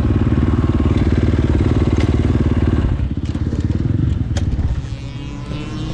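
KTM 450 SMR's single-cylinder four-stroke engine running at low revs with a steady pulsing beat, dropping lower about three seconds in and quieter again near the end. A few sharp clicks sound over it.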